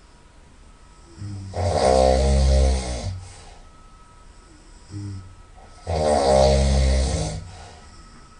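A person snoring very loudly through the nose: two long snores a little over four seconds apart, each opening with a short softer rise and then swelling into a loud snore of about a second and a half.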